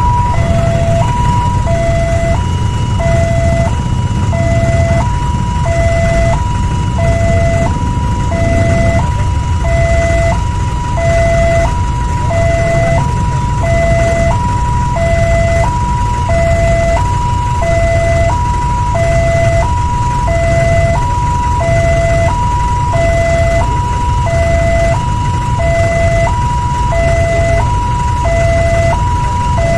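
Old-style Indonesian railway level-crossing alarm from the loudspeaker on the crossing signal pole. It sounds a two-tone electronic warning, switching steadily between a high and a low tone about every half second, the signal that a train is approaching and the crossing is closed. A steady low rumble runs underneath.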